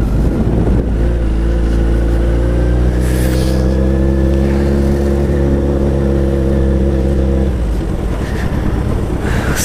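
Suzuki Hayabusa's inline-four engine running at a steady, held speed through a straight-through twin exhaust with its baffles removed, loud and open-sounding. The even engine tone starts about a second in and drops away about two seconds before the end, leaving a rumble.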